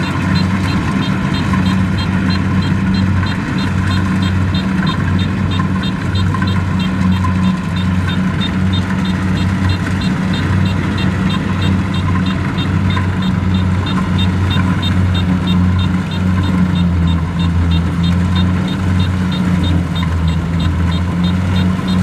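Kubota DC70 combine harvester running steadily while it cuts rice: a deep, even engine drone with a regular high ticking from the machinery over it.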